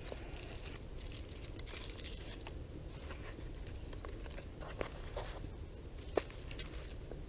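Hands packing mud and leaves around a foil-wrapped fish: faint, scattered crinkling and rustling, with a sharper tick nearly five seconds in and a louder one about six seconds in.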